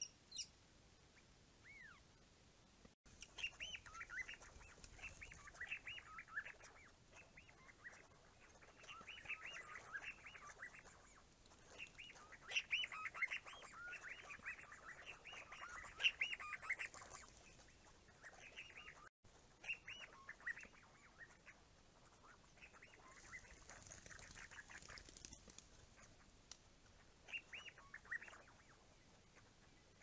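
A flock of sandgrouse calling at the water: a busy chatter of short chirps and whistles, thickest in the first half and thinning out later, with two brief dropouts.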